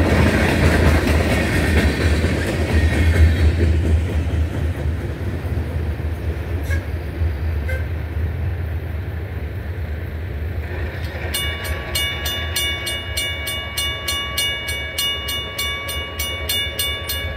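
The last cars of a freight train roll past, wheels rumbling on the rail, and the noise fades as the train moves away. About two-thirds of the way in, a regular ringing of about three strokes a second starts and keeps going.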